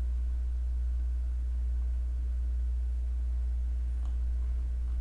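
Steady low electrical hum with faint even overtones, with no speech; a faint click sounds about four seconds in.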